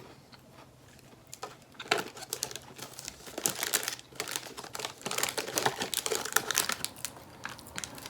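Close, crisp crackling and crunching of a packaged snack biscuit being handled and bitten into: dense irregular crackles from about two seconds in that taper off near the end.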